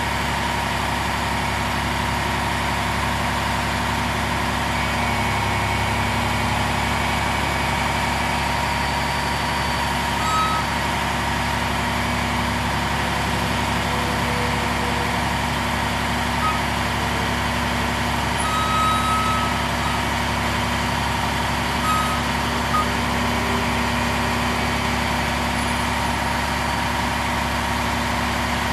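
Six-cylinder Cummins ISM diesel engine of a bucket truck running steadily while its aerial boom is lowered, with a continuous tone under the engine. A few short high chirps come and go.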